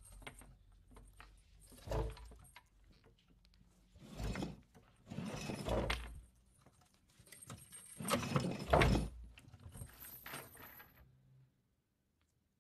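Metal chain rattling and clanking in several separate bursts, the loudest about nine seconds in, then stopping abruptly near the end.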